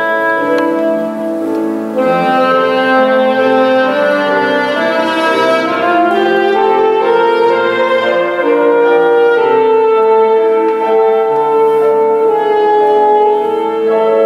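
Saxophone playing a slow melody over piano accompaniment, climbing in the middle and settling on a long held note near the end.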